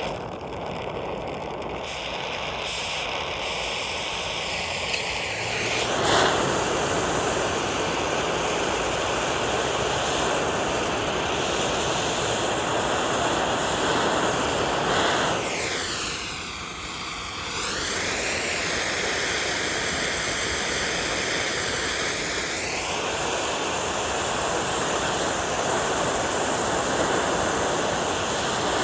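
Gas burner flame running steadily while melting silver: a loud, even rushing noise with faint whistling tones that dip and rise again a few times as the flame shifts.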